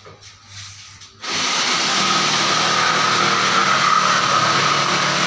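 Electric power tool switched on about a second in: its motor spins up quickly and then runs steadily at full speed with a high whine.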